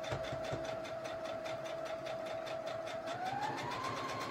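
Electric sewing machine running and stitching a seam, its motor whine steady at first and then rising in pitch about three seconds in as it speeds up.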